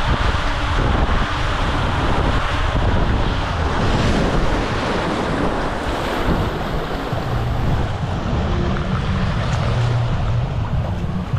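Water rushing and splashing around a rider sliding down an enclosed tube water slide, then water sloshing and lapping close to the microphone as the rider floats in the splash pool.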